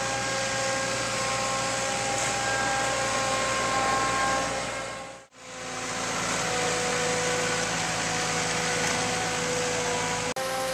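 Skid-steer loader's engine running steadily under load while it lifts on its pallet forks, a low rumble with several steady whining tones over it. The sound fades out and back in about halfway and cuts out for an instant near the end.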